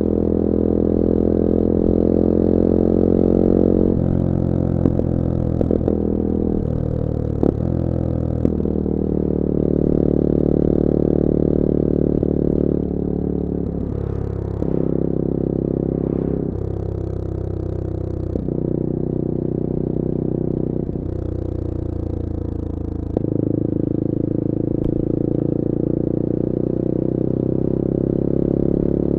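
Bullit Hero 250's CF Moto 250cc four-stroke engine running on the road, its note shifting up and down in steps several times as the rider works the throttle and gears, with a few short clicks.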